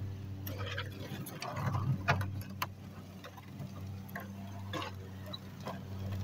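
Hoover outdoor push sweeper rolling on a driveway, its brushes and wheels giving irregular clicks and rattles over a steady low hum.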